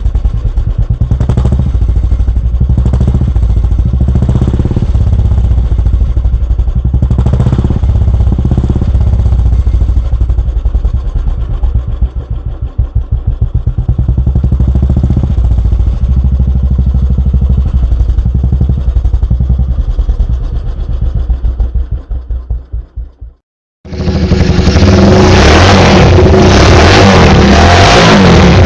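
Royal Enfield single-cylinder motorcycle exhaust with an aftermarket silencer, running with a low, even thump and a few short throttle blips. About 23 seconds in it cuts off, and a louder, harsher exhaust of another Royal Enfield silencer takes over.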